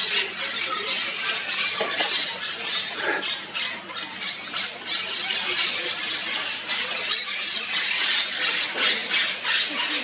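A colony of monk parakeets calling, many short calls overlapping with no break.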